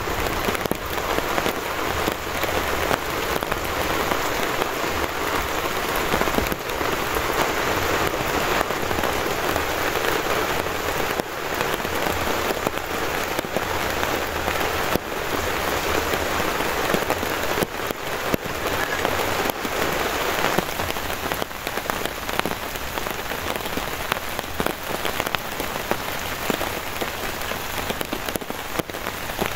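Heavy rain falling steadily, with many separate drops striking a tarp overhead.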